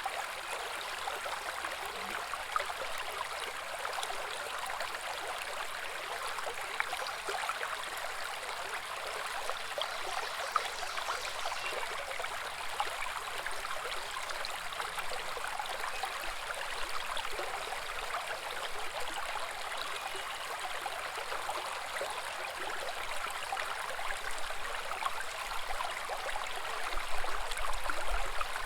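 Small woodland brook babbling over rocks: a steady, continuous rush and splash of running water.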